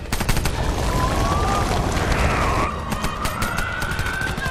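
Action-film battle soundtrack: repeated gunshots over a dense rushing din. A long wailing tone rises slowly in pitch from about a second in.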